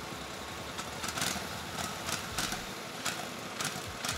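Quad bike (ATV) engine idling steadily, with a few short irregular clicks over it.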